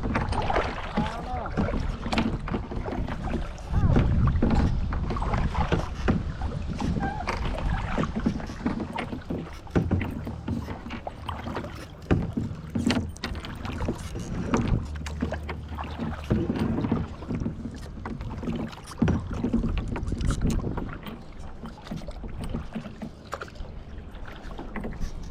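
Kayak paddle strokes dipping and splashing in the water at an uneven pace, with wind rumbling on the action camera's microphone.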